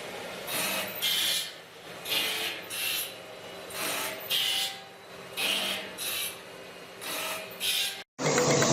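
A tool scraping a workpiece in repeated rasping strokes, about one to two a second, like a file being worked back and forth. Near the end it cuts off abruptly and music starts.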